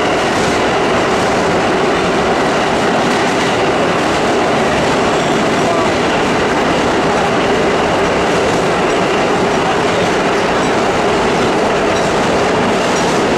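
Vintage subway car in motion, heard from inside the car: a loud, steady rumble and rattle of the wheels on the rails and the car body.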